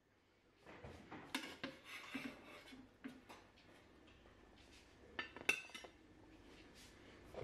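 Light clatter and scraping of a metal baking tray and a plate as pizza slices are lifted off the tray onto the plate: scattered clicks and knocks, one cluster about a second in and another around five seconds in.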